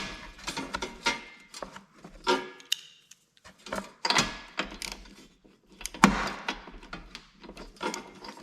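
Metal hand tools clinking and clicking in irregular knocks, a few with a short metallic ring: sockets and a ratchet being handled and fitted to get at a mower engine's spark plug.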